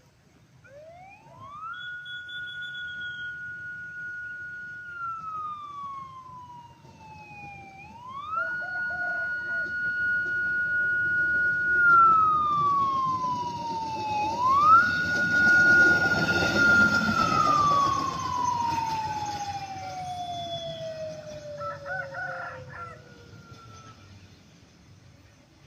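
Siren of a rail vehicle running on the track, wailing up, holding its high note for a few seconds and gliding down, three times over, the last fall long and slow. Running noise swells under it in the middle as the vehicle passes close.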